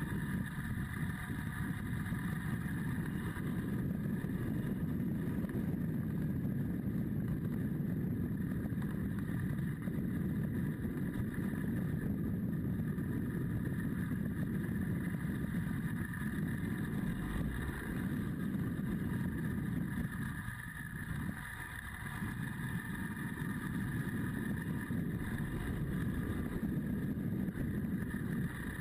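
Adventure motorcycle's engine running steadily on the move, with wind and road noise on a bike-mounted camera; it goes quieter for a moment about twenty seconds in, then picks up again.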